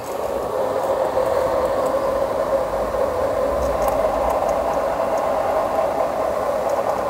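Timken-type oil wear tester running: its motor spins a steel test roller against a block bathed in engine oil with Liqui Moly Ceratec additive, a steady grinding whir as the oil warms up for the load test.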